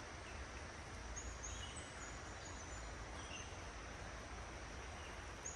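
Faint, steady rush of fast-flowing creek water, with a few faint high chirps over it.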